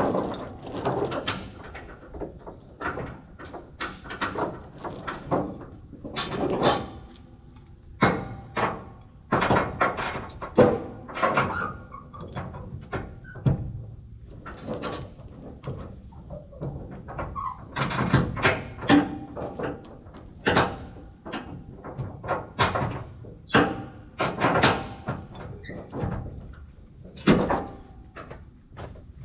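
A long run of irregular knocks and clanks, dozens of short sudden strokes spaced unevenly.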